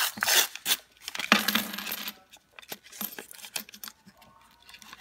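A paper penny roll being torn open, the wrapper crinkling, and the pennies spilling out and clinking against each other onto a wooden tabletop in a run of short sharp clicks.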